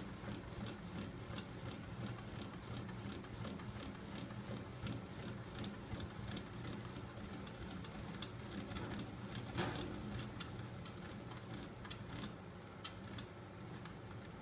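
Homemade magnet-driven flywheel engine running: a steady low hum with a light regular tick about three times a second from its spinning magnet rotor, the ticks spacing out toward the end as it slows. One louder click about two-thirds of the way through.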